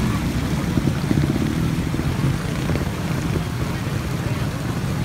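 Trials motorcycle engine running as the bike climbs over the rocks of a stream bed.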